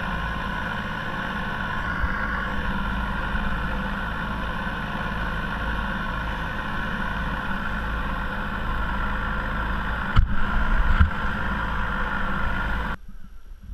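A small motor drives a kayak along at speed: a steady drone, with water rushing and splashing along the hull. There is a knock about ten seconds in, and the motor and water sound cut off suddenly near the end.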